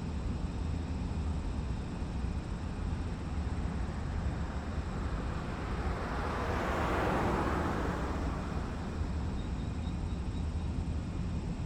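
Factory exterior ambience: a steady low machinery rumble with faint steady hums, and a broad rushing swell that builds and fades over a few seconds around the middle.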